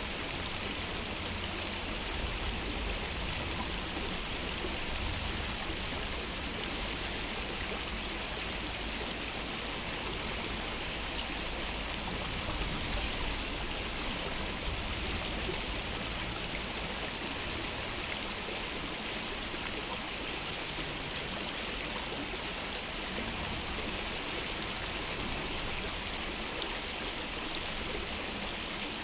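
Stream water running steadily, a continuous even rush with a faint low rumble underneath.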